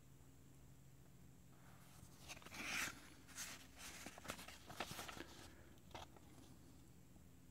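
Paper rustling and crinkling as a folded instruction booklet is handled, opened and its pages turned: a few faint bursts of rustle, loudest about three seconds in.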